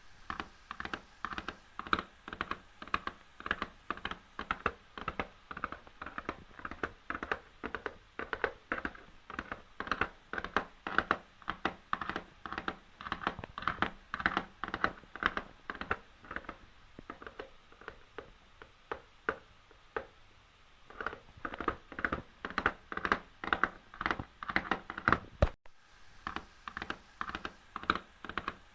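A horse's hooves galloping: a rapid, uneven run of sharp hoofbeats falling in repeating groups, with a brief dropout about three-quarters of the way through.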